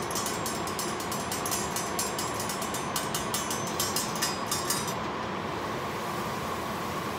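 Chopped onion and garlic frying in oil in a covered stainless steel pot: a dense sizzling crackle that dies away about five seconds in, around when the lid is lifted, over a steady hum.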